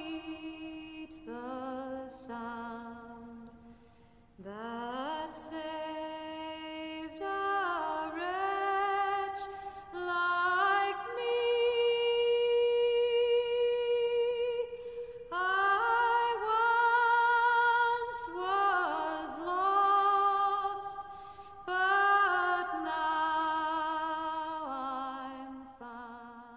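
A woman's voice singing a slow solo melody, with long held notes and vibrato, fading out near the end.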